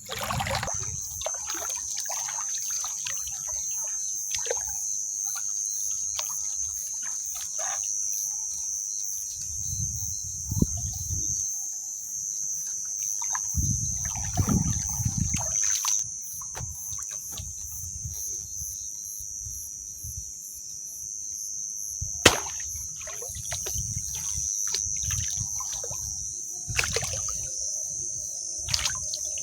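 A steady high-pitched night chorus of crickets, with irregular water sloshing and trickling and scattered knocks and handling sounds close by. There is one sharp knock about two-thirds of the way through.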